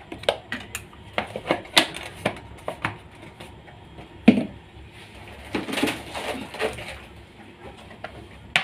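Kitchen handling noises: small clicks and taps of a spoon and a plastic container, a knock about four seconds in, a rustling scrape around six seconds, and a sharp click near the end.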